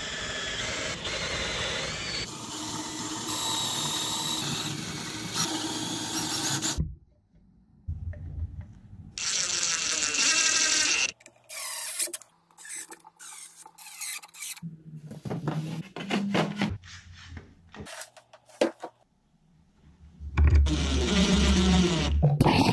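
DeWalt cordless drill running in one long run of about seven seconds, then in several shorter bursts with pauses between, fitting figure-eight fasteners into the frame.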